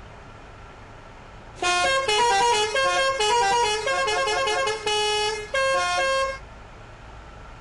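Basuri telolet bus horn playing a quick melody of stepped musical notes. It starts about a second and a half in, runs for about five seconds with a few brief breaks, and stops before the end.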